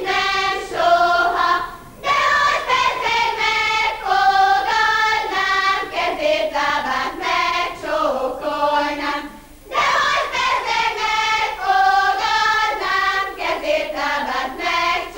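A group of girls and children singing a Hungarian folk song together as a choir, phrase by phrase, with short pauses for breath about two seconds and ten seconds in.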